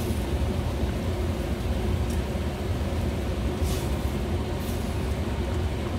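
A steady low rumble of kitchen background noise throughout, with a few faint soft handling sounds as kimchi is pressed by hand into a stainless steel pot.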